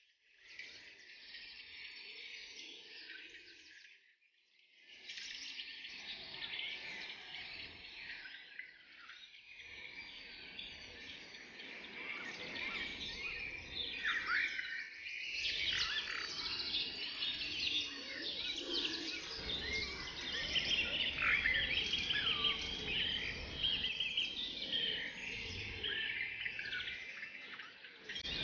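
A forest bird chorus: many birds singing and calling at once, with overlapping high chirps and trills. It briefly drops away about four seconds in, then grows busier and louder through the second half.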